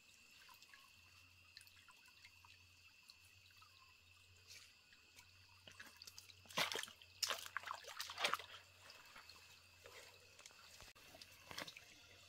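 Faint trickling of a small forest stream, with a few louder footsteps on the wet stones of the streambed about halfway through.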